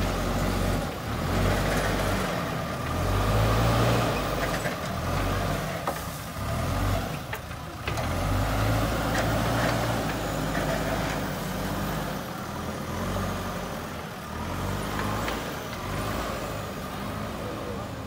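JCB 3DX backhoe loader's diesel engine working under load as the machine drives over loose soil with its loader bucket raised, the engine note rising and falling repeatedly.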